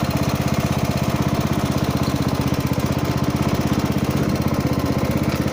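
Riding lawn mower engine running steadily under way, with an even, rapid pulsing beat.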